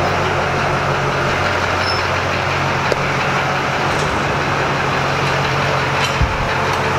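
LB7 Duramax 6.6-litre V8 turbodiesel idling steadily, a low even rumble under a broad hiss, with a single low thump about six seconds in.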